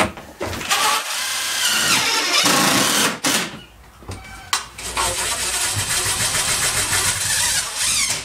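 Handheld power drill running in two bursts of about three seconds each, with a short pause between.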